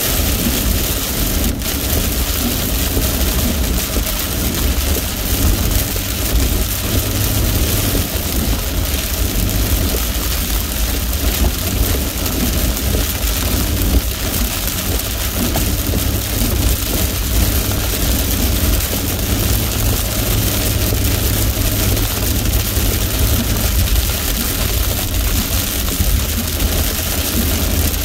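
Heavy rain on a moving car during a thunderstorm, heard from inside the cabin over a steady low road and engine rumble. There is a single click about a second and a half in.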